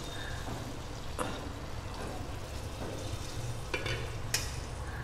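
Barnyard millet (bhagar) sizzling and bubbling in a nonstick pan as hot water is added and stirred in with a silicone spatula. The sizzle is steady, with a few light clicks of the spatula against the pan.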